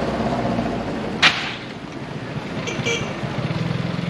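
A motor vehicle engine running steadily amid street noise, with one sharp clack about a second in.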